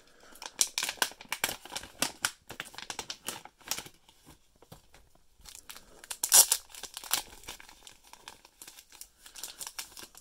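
Black plastic mystery card pouch torn open and crinkled by hand, then the clear plastic bag holding the cards crinkling as they are pulled out, loudest a little past the middle.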